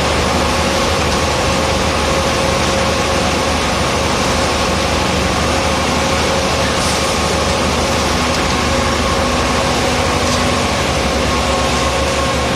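Diesel engine of a mobile concrete mixer pump running steadily, with a steady whine over the engine noise.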